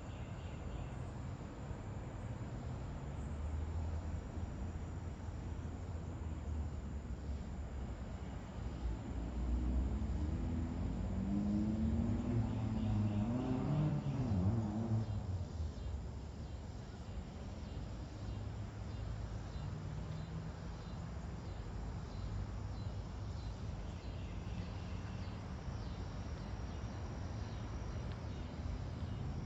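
Steady low rumble of distant road traffic, with crickets and other insects chirring faintly. A motor vehicle passes, its engine sound swelling and then dropping in pitch, loudest about fourteen seconds in.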